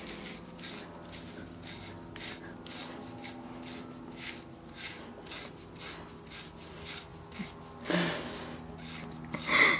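FURminator deshedding tool raked through a dog's short double coat in quick repeated strokes, a scratchy rasping about two to three times a second. A couple of louder brief sounds come near the end.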